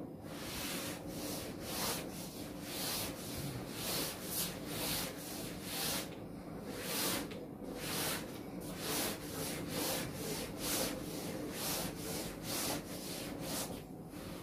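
Chalkboard being wiped clean with a duster: a dry rubbing scrape in repeated back-and-forth strokes, one or two a second.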